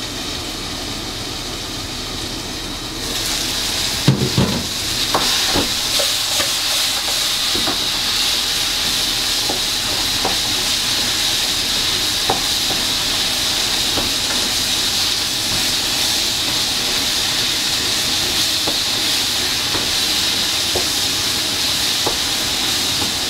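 Pork curry with roselle leaves sizzling and hissing in the cooking pot. The hiss grows louder about three seconds in. A spoon or ladle knocks against the pot several times soon after, then now and then.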